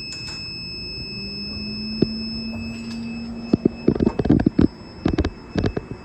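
Vacuum induction furnace equipment running, with a steady high-pitched whine throughout. A low hum comes in about a second in and stops near the middle, followed by a quick series of metallic knocks and clanks in the second half.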